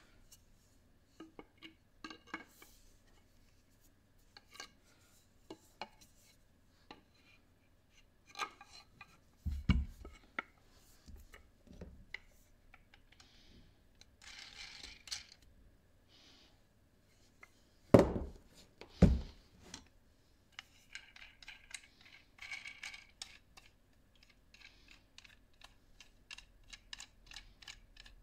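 Small metal parts and hand tools being handled during bench work on a battery clamp: scattered clicks, taps and light scraping, with two louder knocks about eighteen and nineteen seconds in, then a run of quick small ticks.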